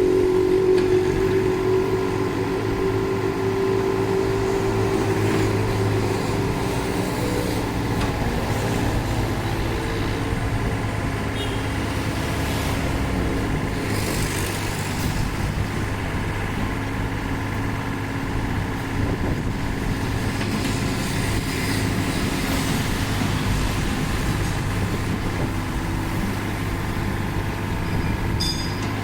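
Kobelco SK30UR mini excavator's three-cylinder Yanmar diesel engine running steadily as the machine works, with a higher tone over it that fades out about seven seconds in.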